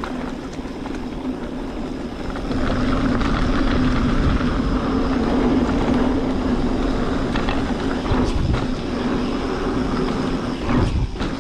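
Mountain bike rolling down a dirt trail: a steady rush of tyre and wind noise that gets louder about two seconds in, with a few sharp knocks and rattles from the bike over rough ground.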